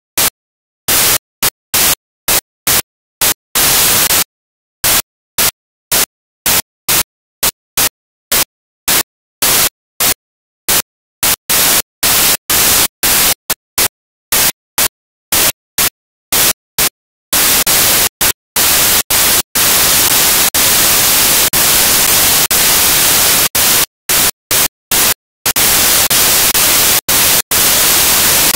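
Harsh digital static, a loud white-noise hiss, cutting hard on and off. At first it comes as short bursts about two a second with dead silence between them. Later it runs in longer unbroken stretches. This is the sound of a glitched, corrupted audio track.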